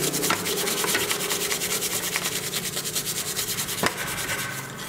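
Steel wool scrubbing a metal part of an old electric drill in soapy water: fast, even back-and-forth rubbing strokes, several a second, which stop shortly before the end.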